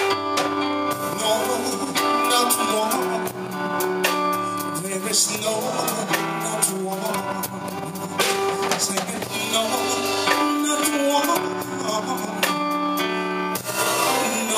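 A live band playing a Christmas carol: a man singing into a microphone over held chords on a Yamaha PSR-S750 electronic keyboard, with drum kit and cymbal hits.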